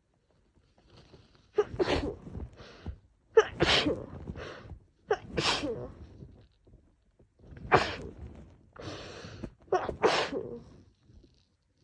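A woman sneezing five times in a row, about two seconds apart, with quieter breaths between the sneezes. The rapid fit of sneezes comes from a head cold on top of seasonal allergies.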